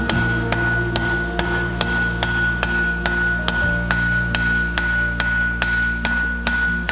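Hand hammer striking a glowing mild steel bar on an anvil in an even rhythm, about two to three blows a second. The anvil keeps ringing on a steady high note between the blows.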